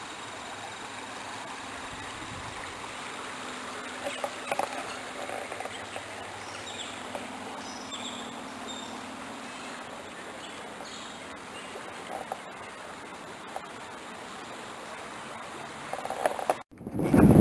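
Creek water running in a steady rush, with a few faint high chirps and soft knocks over it; the sound cuts out abruptly near the end.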